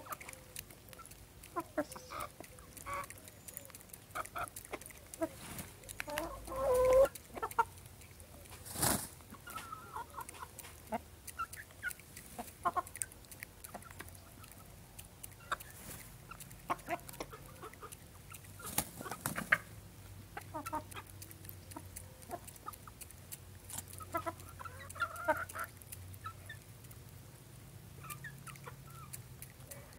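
Flock of hens clucking softly and pecking feed off bare dirt, with small taps throughout and one louder call about seven seconds in. Twice, a short burst of noise as a hen shakes out and ruffles her feathers.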